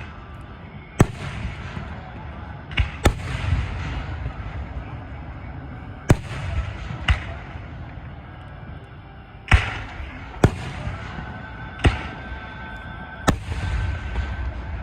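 Aerial fireworks going off: about nine sharp, loud bangs at irregular intervals, a pair in quick succession about three seconds in. Each bang is followed by a low rumble and crackle.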